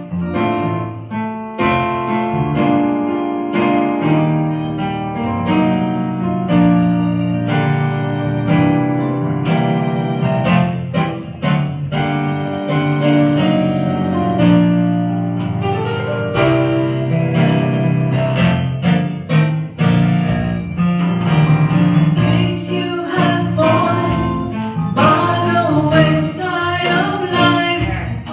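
Live gospel praise music: keyboard chords accompanying women singing into microphones, the singing growing stronger in the last several seconds.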